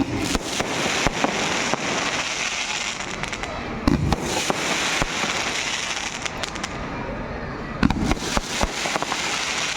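Fireworks and firecrackers going off: a dense run of sharp bangs and crackles, with two louder bangs about four seconds and eight seconds in.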